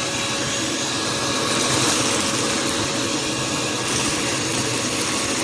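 Armor All 1.5-gallon wet/dry shop vacuum running steadily, its motor giving an even rushing whir.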